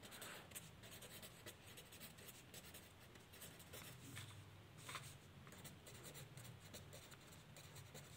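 Pen writing on lined notebook paper: faint, soft scratching of the strokes as words are written out, with a faint low hum behind.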